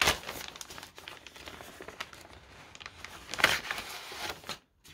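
Clear plastic bags of cross-stitch kits crinkling and rustling as they are handled, with a louder crinkle about three and a half seconds in.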